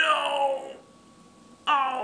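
A person's drawn-out cry of "oh no" that falls in pitch, then a second "oh no" starting near the end, in dismay at a drink foaming over.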